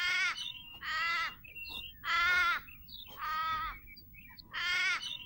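A recorded animal-call sound effect repeated about once a second, each call about half a second long.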